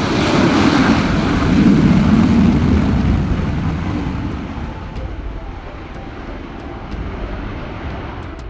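Sukhoi Su-30MKM fighter's jet engines on a takeoff run: a loud, rough rushing noise that peaks about two seconds in, then slowly fades as the jet climbs away.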